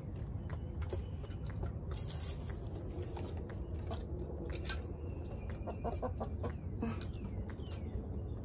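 Backyard hens pecking, a scatter of small sharp clicks, with a few short clucks about five to seven seconds in.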